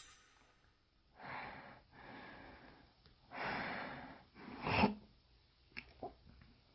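A person breathing close to the microphone: several soft breaths in and out, the last one the loudest, followed by two small clicks near the end.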